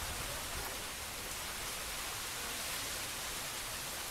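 Steady rain falling on a field of tall grass: an even, unbroken hiss.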